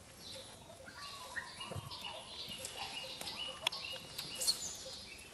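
High, short animal chirps and squeaks in quick succession, some held briefly and some gliding, over a faint steady pulse about four times a second, with two sharp clicks in the second half.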